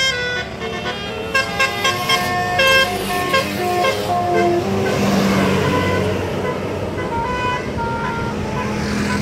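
Bus 'telolet' Basuri multi-tone air horn playing a quick melody of short stepped notes, with the bus engine running underneath. After a noisier stretch, a few more horn notes sound near the end.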